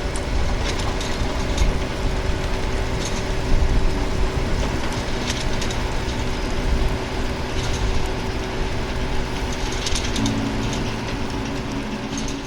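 Heavy harvesting machinery running steadily, its diesel engine's drone overlaid with irregular metallic clanks and rattles of the working parts and crop being handled.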